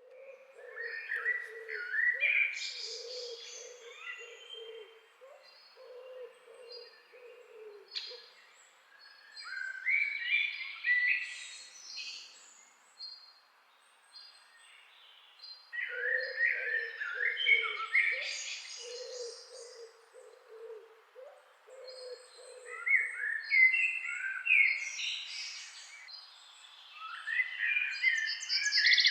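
Several wild birds singing: a rich warbled song phrase returns every seven seconds or so, with short high thin notes repeated between phrases. A low repeated call runs underneath during the first eight seconds and again past the middle.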